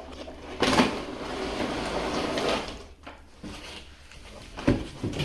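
Cardboard toy box being opened: a rough sliding, rustling scrape of cardboard and packaging for about two seconds, then a couple of light knocks.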